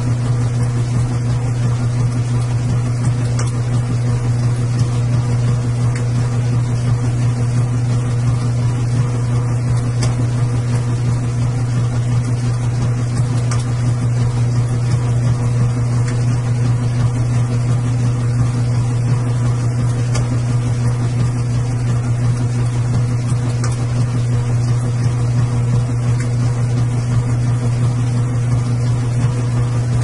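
Washing machine running: a steady low hum with an even whir over it that does not change, and a few faint clicks now and then.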